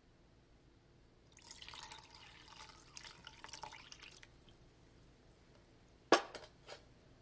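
Water poured from a metal pot into a blender jar of torn scrap paper, splashing for about three seconds as the paper is soaked before being blended into pulp for papermaking. Near the end, one sharp clink followed by two lighter taps.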